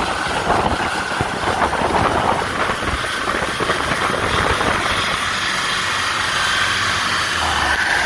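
Turbocharged 2.5-litre EJ25 flat-four of a Subaru Forester 2.5 XT running under load on a chassis dyno, heard from behind the car through an exhaust with the rear silencer removed. The engine note builds slowly and gets slightly louder toward the end.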